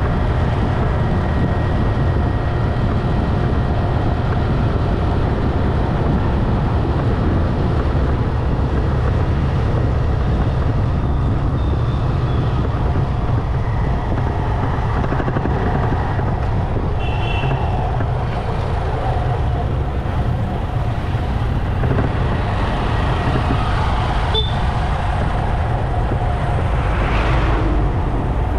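Motorcycle riding at a steady pace, its engine and a low wind rumble running without a break, with the sound of road traffic around it. A few brief high-pitched chirps come in over it about halfway through.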